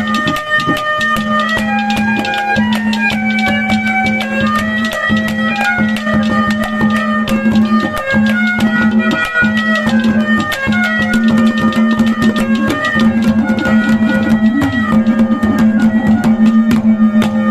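Instrumental break of Haryanvi ragini folk music: a reedy melody moving in held steps over a steady drone note, with quick drum strokes throughout.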